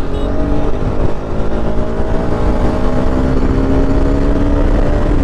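Single-cylinder 200 cc motorcycle engine running under way, its note steady and rising slightly, over a rush of wind.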